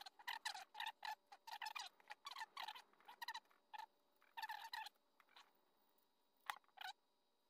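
Steel tool of a Swiss Army–style pocketknife scraping out an old pocketknife's handle, metal on metal, in a quick run of short high squeaks, then two more squeaks near the end.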